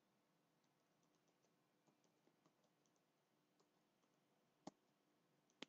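Near silence, with two faint computer keyboard key clicks near the end.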